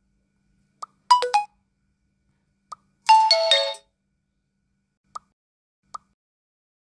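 Advan G5 smartphone's stock notification sounds previewed one after another: a quick run of short electronic notes about a second in, then a longer chime of several falling notes about three seconds in. Each is preceded by a faint tap click, and two more lone clicks come near the end.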